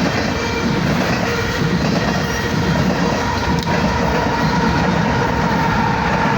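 Loaded coal train rolling by: a steady rumble of wheels on the rails, with a thin steady squeal that grows louder near the end.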